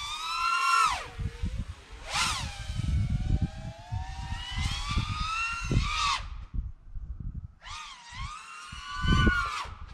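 FPV quadcopter drone's motors whining, the pitch rising and falling with the throttle, with irregular low wind buffeting on the drone's onboard camera microphone. The whine cuts out about six seconds in and comes back about a second and a half later.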